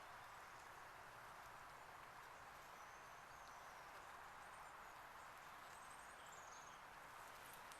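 Near silence: faint steady outdoor background hiss, with a few short, high bird chirps in the middle.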